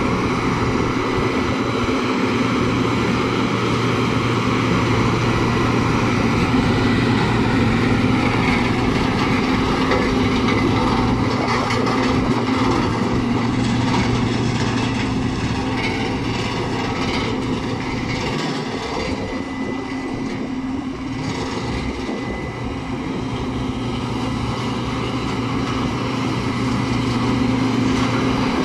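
Caterpillar CB-634C tandem drum roller's diesel engine running at a steady pitch as the roller drives, a little quieter about two-thirds of the way through and louder again near the end.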